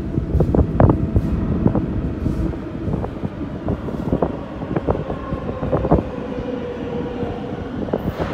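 R188 subway train pulling into the station: a low, steady rumble with irregular clanks from the wheels on the track, and a faint steady whine coming in about halfway through.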